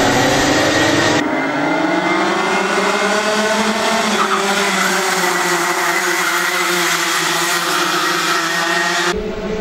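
A pack of racing karts' two-stroke engines buzzing past, the pitches of several engines rising and falling together as they accelerate and ease off through the corners. The sound changes abruptly about a second in and again near the end.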